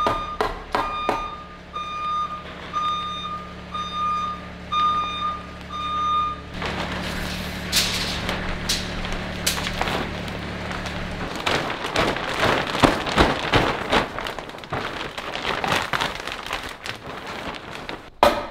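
A scissor lift's motion alarm beeping about twice a second over the steady hum of its drive motor. The beeping stops about six seconds in and the hum about eleven seconds in. Plastic sheeting then crackles and rustles as it is handled.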